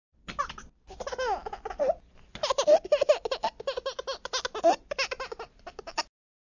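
A baby laughing: strings of quick, high-pitched giggles with short breaks between them.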